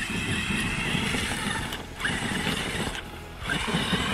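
Traxxas X-Maxx 8S RC monster truck driving hard through snow on paddle tires: its brushless electric motor whines under throttle while the tires churn snow. The sound drops off briefly about two seconds in and again about three seconds in, as the throttle is let off.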